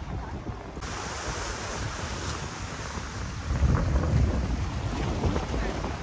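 Wind buffeting the microphone in uneven gusts over a steady rushing noise, which turns brighter and hissier about a second in.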